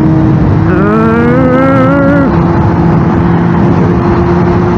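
Honda CBR sport bike's inline-four engine running steadily at highway cruising speed, with wind and road rush on the microphone. A brief rising tone joins in about a second in and cuts off abruptly after about a second and a half.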